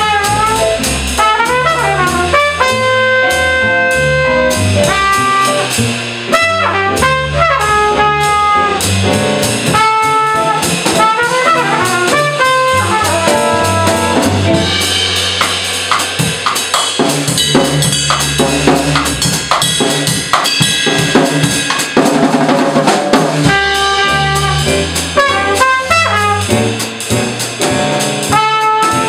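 Small jazz combo playing swing: trumpet playing the lead line in held and moving notes over upright bass and a drum kit with steady cymbal strikes.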